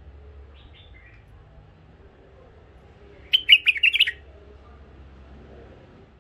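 Caged bulbul calling: a faint short chirp about half a second in, then a loud, quick phrase of several notes lasting under a second, about three seconds in.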